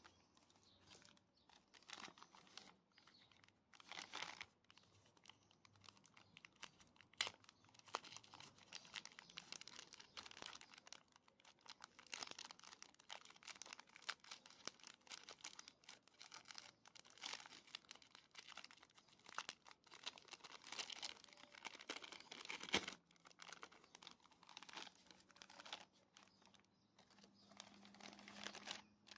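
Clear plastic bag crinkling and rustling in the hands, with irregular crackles as the tape sealing it is picked at and peeled off.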